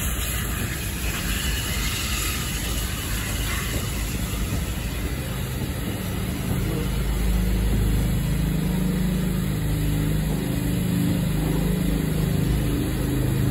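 Steam trains standing at a station platform: a steady hiss at first, then a low, even hum that comes in about five seconds in.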